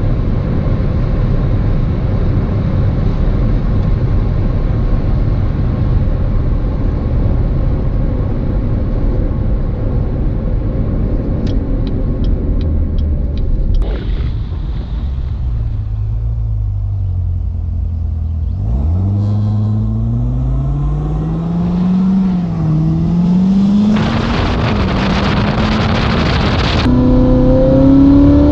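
2019 Corvette ZR1's supercharged 6.2-litre LT5 V8 on the road: a steady low rumble at first, with a brief run of light ticks, then the engine note falls as the car slows. Past the middle it accelerates hard, the pitch rising and dropping back through a couple of gear changes, with a loud rush of engine and exhaust noise near the end.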